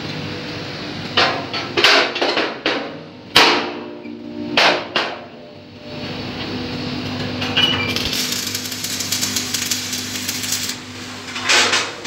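Hammer blows on the steel shell of a concrete mixer drum, about seven ringing metallic strikes in the first five seconds and one more near the end. Between them, for a couple of seconds, comes a crackling hiss over a steady hum.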